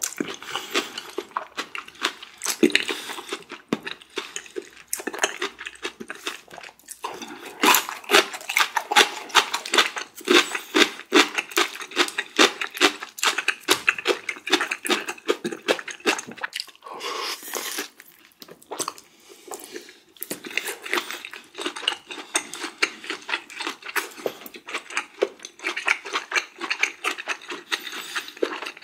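Close-miked eating sounds: chewing and mouth noises in a dense run of quick, irregular clicks and smacks, with a short lull about two-thirds of the way through.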